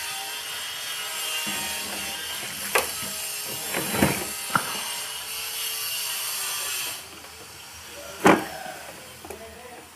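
A CRT television's main circuit board and plastic chassis being handled and fitted back into the set: four knocks of board against plastic, the loudest near the end, over a steady hiss that drops away about seven seconds in.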